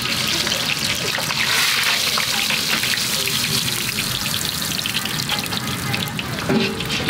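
Hot oil sizzling and crackling steadily as a bolani, a stuffed Afghan flatbread, deep-fries in a wide pan.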